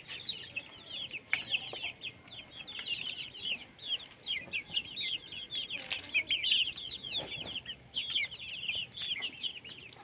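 A flock of young chickens peeping nonstop, many short, high, falling chirps overlapping one another.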